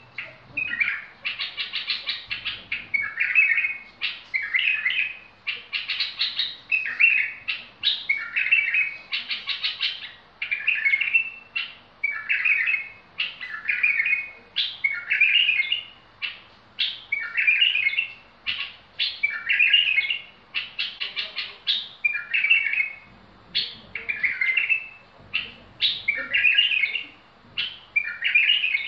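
A caged bulbul singing the same short phrase over and over, about once every second or so. Each phrase is a quick run of sharp notes followed by a warbled whistle.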